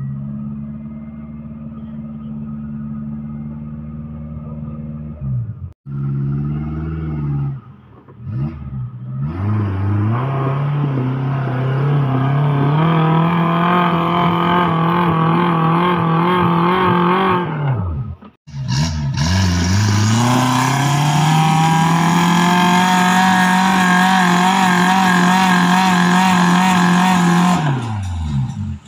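Suzuki Jimny off-road build's engine under load on a steep muddy climb, revving up and held at high revs with a slightly wavering pitch, then dropping back near the end. The sound cuts off abruptly for an instant twice.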